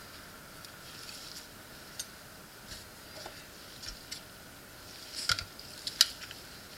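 Small metal tools and watch parts of a Seiko 4R36 automatic movement clicking and scraping lightly as the watch is taken apart, with scattered soft ticks and two sharper clicks near the end.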